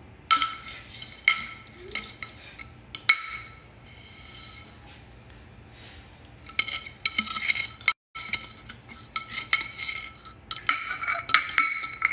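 Repeated irregular clinks and scrapes against a glass mixing bowl, the glass ringing briefly after each knock, as sugar is tapped and scraped out of a container onto butter. The clinks come in clusters, with a quieter stretch in the middle.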